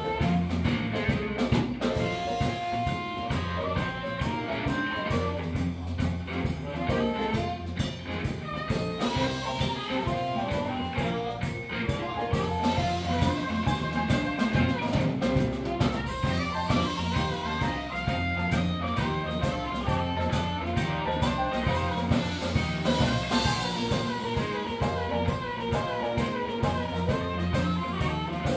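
Live blues band playing: harmonica played into a microphone over electric guitar, electric bass and drum kit, with a steady beat.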